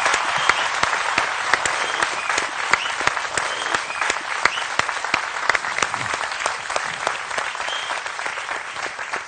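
Studio audience applauding, dense clapping that grows a little softer toward the end.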